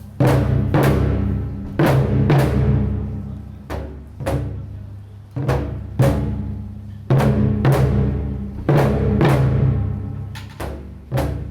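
Japanese taiko drums struck hard, mostly in pairs of strokes about half a second apart. Each stroke gives a deep boom that rings on and fades before the next pair.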